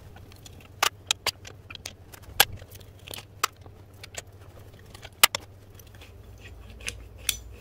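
About a dozen sharp, irregularly spaced metallic clicks and clinks: a socket on an extension bar being fitted to and turned on the bell-housing bolts of a gearbox, with the tools knocking together.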